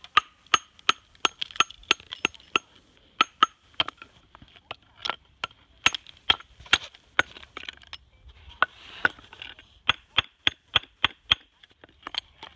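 Hammer chipping a raw natural whetstone stone (suita): a quick run of sharp ringing taps, about two to three a second, with a gritty crumbling sound about nine seconds in. The ring of each blow is how the cutter hears where the stone's layers are weakly bonded before splitting them.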